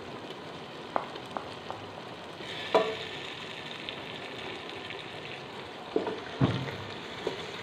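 Tomato-onion biryani masala sizzling in oil in a steel pot while a wooden spoon stirs it, with several sharp knocks of the spoon against the pot. The sizzle turns louder and brighter for about two seconds a little before the middle.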